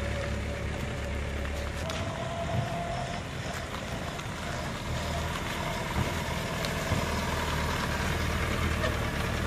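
Sport motorcycle with a sidecar running at low revs as the rig rolls slowly, a steady engine note without hard revving.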